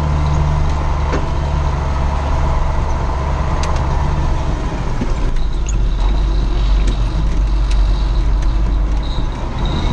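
John Deere 6510 tractor's diesel engine running steadily under way, heard from inside the cab as a deep drone. Its note settles lower about halfway through, with a few light clicks in the second half.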